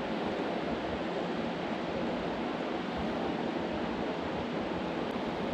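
Steady rush of flowing river water, an even hiss with no breaks or changes.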